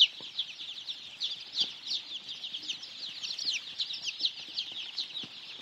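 A large brood of day-old layer chicks peeping: many short, high, downward-sliding peeps overlapping in a steady stream.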